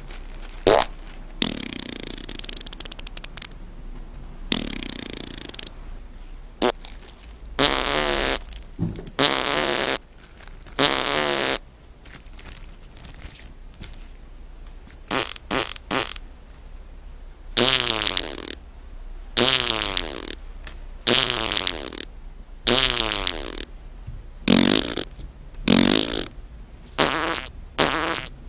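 A string of about a dozen fart sound effects, one after another, each half a second to a second long. Several have a buzzy pitch that wavers.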